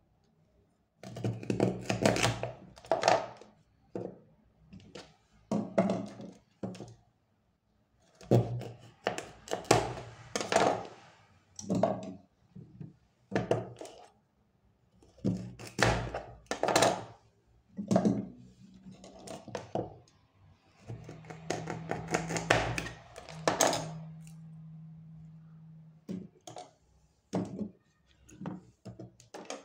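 Kitchen knife cutting through peeled cassava root and knocking on a plastic cutting board, in irregular clusters of cuts and thunks. A steady low hum runs for a few seconds past the middle.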